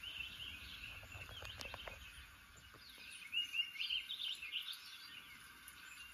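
Small birds chirping from a bird video playing through a television's speakers, in short clusters of quick calls, busiest in the second half. A few soft taps come about a second in.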